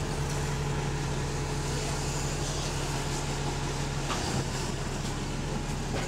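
Bus's diesel engine running steadily with a low hum as the bus drives, heard from inside the passenger saloon; the bus has an exhaust leak.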